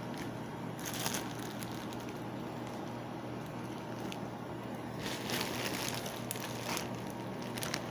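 Plastic courier mailer bag rustling and crinkling as it is handled, in bursts about a second in and again around five to six seconds in, over a steady low hum.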